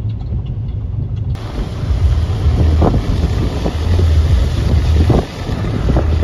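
Strong gusty wind buffeting the microphone, a heavy low rumble that rises and falls; for about the first second and a half there is a steadier car road noise instead.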